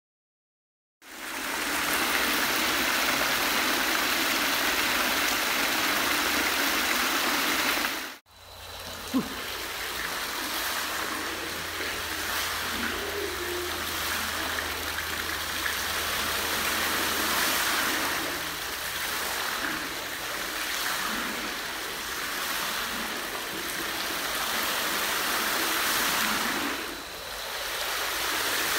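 Fountain jets spraying and splashing back into a round tank of water: a steady rush of falling water. It starts suddenly about a second in and breaks off briefly about eight seconds in. When it resumes, a low steady hum runs underneath for several seconds, with a single sharp click shortly after the break.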